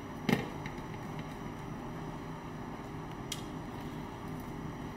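Small clicks as a screwdriver removes Phillips screws from a wireless charger's metal base: one sharp click about a third of a second in and a faint tick about three seconds in, over a low steady hum.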